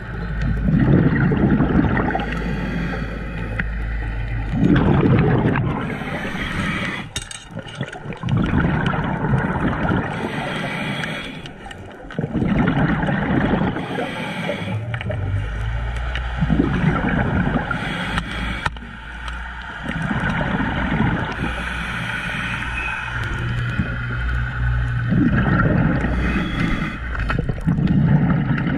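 Underwater water noise heard on an action camera: a steady rushing gurgle, with low swells that come and go every few seconds.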